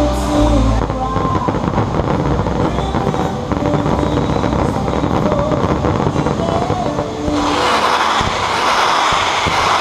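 Fireworks going off in rapid succession: dense crackling and popping, with the show's music faint beneath. About seven seconds in it turns into a loud, continuous hissing crackle.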